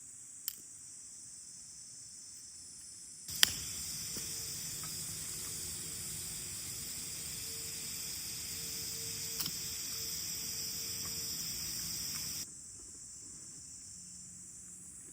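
Insects, crickets or similar, trilling steadily at a high pitch. About three seconds in, a sharp click opens a louder stretch of noise with a faint steady hum, which cuts off abruptly after about nine seconds.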